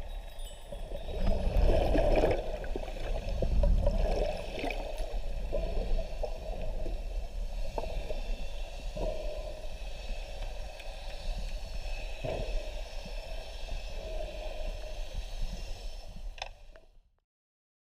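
Underwater water noise picked up by a camera in a waterproof housing: a muffled low rumble and sloshing, swelling for a few seconds early on, with a few soft knocks. It cuts off to silence near the end.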